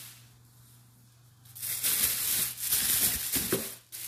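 Plastic grocery bag rustling and crinkling as items are pulled out of it, starting about a second and a half in after a short quiet stretch.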